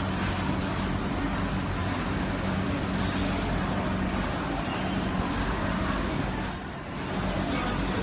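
Steady machinery and ventilation noise of an electronics assembly floor, with a constant low hum underneath.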